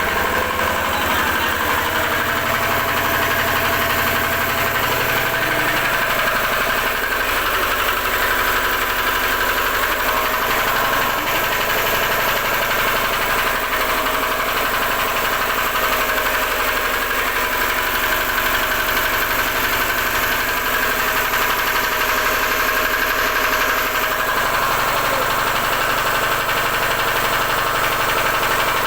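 Generator engine running steadily at an even speed.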